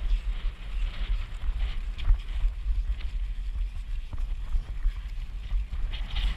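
Wind buffeting the microphone of a camera carried on a cantering horse: a heavy, uneven low rumble.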